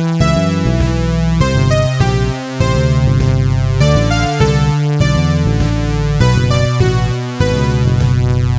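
Electronic synthesizer music: sustained synth chords that change about once a second, with two brief drops in loudness.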